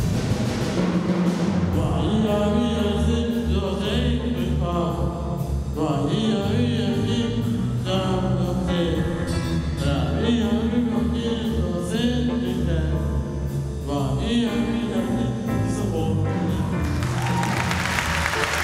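School orchestra with a choir performing: drum strikes in the first second or two, then voices singing over the orchestra. Near the end the audience breaks into applause.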